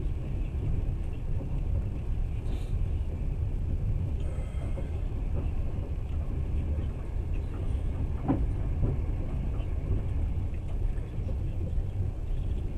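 Passenger train running: a steady low rumble of the carriage rolling on the rails, heard from inside the car.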